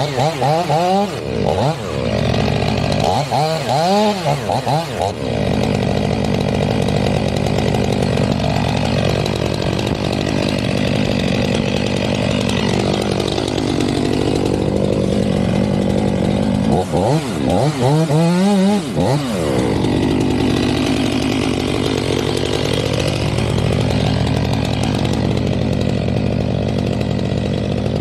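Stihl MS 500i fuel-injected two-stroke chainsaw running at high revs, cutting into the base of a conifer trunk. The engine pitch dips and rises a few times, about a second in, around four seconds in and again past the middle.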